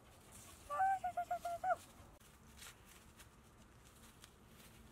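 A high-pitched animal call about a second in: one held note, then a quick run of about five short notes on the same pitch.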